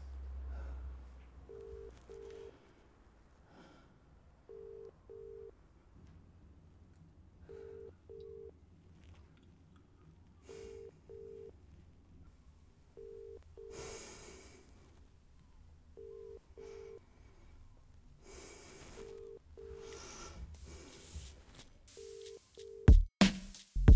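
Telephone ringing tone heard down the line, the British double 'brr-brr' repeating about every three seconds, nine times, with no one picking up. Loud music hits come in about a second before the end.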